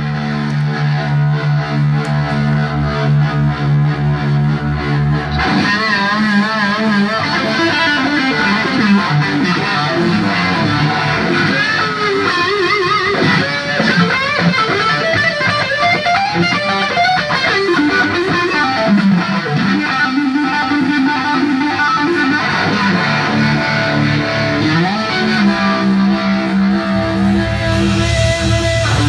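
Live blues-rock electric guitar with distortion: a sustained chord rings for the first few seconds, then a lead line with wide vibrato and string bends. A low bass part comes in near the end.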